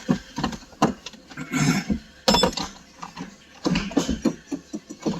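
A series of knocks, clunks and rustling as a person climbs into a car, with the loudest sharp knock, ringing briefly, a little over two seconds in.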